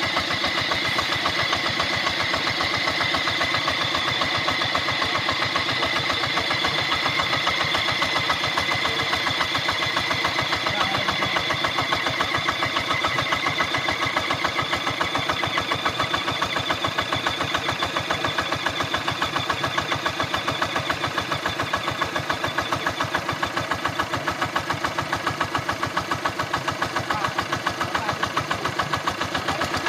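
Diesel water-pump engine running steadily, a fast even chugging of firing pulses, while it drives the pump to irrigate a rice field.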